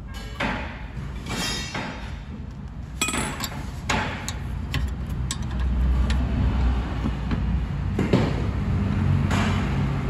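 Scattered metallic knocks and clinks from tools working on a car's rear brake, over a steady low hum that grows louder about halfway through.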